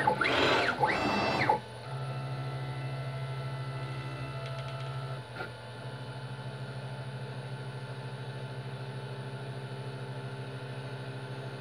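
CNC router's axis motors driving an automatic probing routine: two quick moves in the first second and a half whose whine ramps up in pitch and back down, then long steady low whines of slow probing moves, broken by a short click a little past five seconds in.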